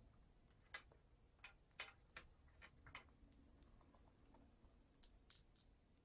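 Faint, irregular clicks and taps of amazon parrots' beaks on the plastic rungs and small toys of a wooden ladder toy, about a dozen in all, a few of them sharper and higher.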